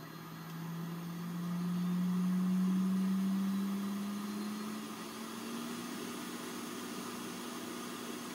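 A steady motor hum with a whirring noise, its pitch climbing slowly over about five seconds and then holding level, loudest around two to three seconds in.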